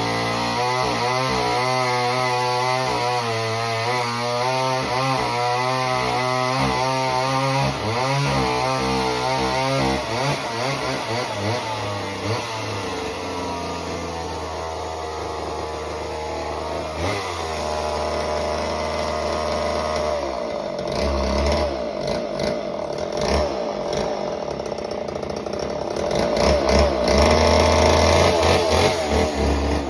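Homelite Super Mini chainsaw's two-stroke engine running, its pitch wavering up and down through the first third, then revving up and down, loudest near the end.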